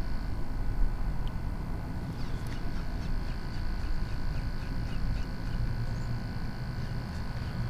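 Outdoor ambience on the water: a low rumble of wind on the microphone under a steady high-pitched hum, with a few faint ticks in the middle.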